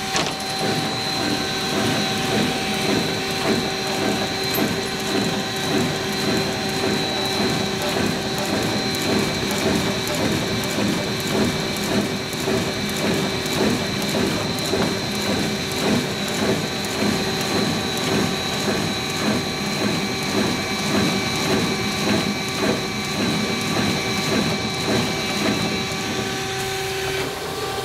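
Muffler-making machine running: a steady mechanical clatter that swells and fades about once or twice a second, over a steady high whine and a lower hum.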